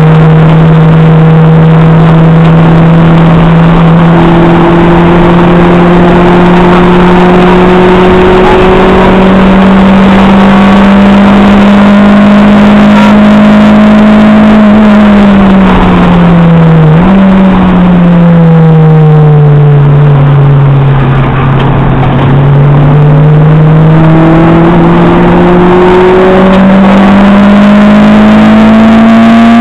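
Acura RSX Type-S's K20A2 2.0-litre four-cylinder engine heard from inside the cabin, pulling hard at high revs around a race track. The pitch climbs slowly, dips sharply a little past halfway, falls away as the car slows and climbs again toward the end as it accelerates.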